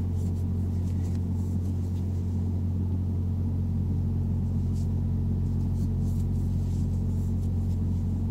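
A steady low mechanical hum made of several even tones, with a few faint, light scratches of the crochet hook and yarn now and then.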